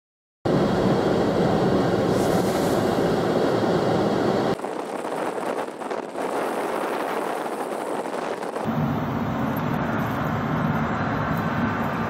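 Blizzard wind blowing hard across the microphone: a steady loud rush that starts suddenly about half a second in and changes abruptly twice, at about four and a half and nine seconds in, as the clips cut.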